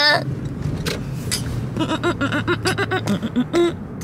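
Steady drone of a car's engine and road noise heard inside the cabin. In the second half a woman's voice sings a string of short, high-pitched syllables.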